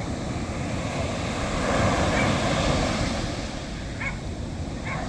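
Sea waves washing onto the shore, swelling to a peak about two seconds in and then easing off.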